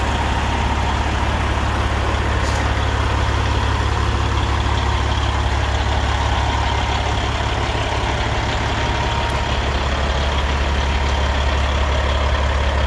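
Caterpillar 3406E inline-six diesel in a Peterbilt 379 idling steadily, a deep, even rumble.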